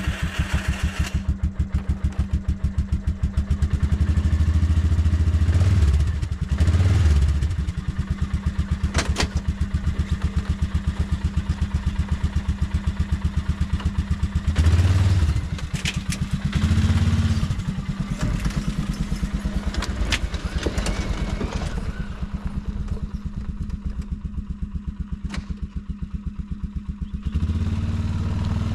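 Four-wheeler (ATV) engine idling with an even low pulse, revved briefly several times, with a few sharp knocks and clatters over it.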